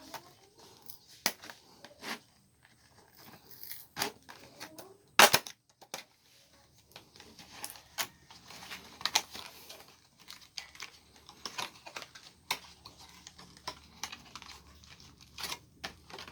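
Cardboard retail box and packaging being opened by hand: scattered clicks, scrapes, tearing and crinkling, with one sharp snap about five seconds in.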